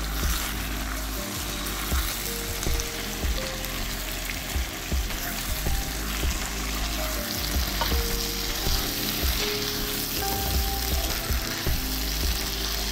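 Spiced mutton pieces sizzling as they fry in hot oil in a pot, with a steady hiss and occasional knocks and scrapes of a wooden spatula stirring them.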